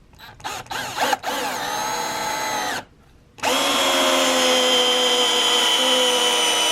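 Hychika DD18F 20-volt cordless drill on its low (number 1) speed driving a 3-inch screw into a 2x4 with no pilot hole. A few short trigger bursts, a run of about a second and a half, a brief stop, then a longer steady run of about four seconds as the screw goes in without trouble.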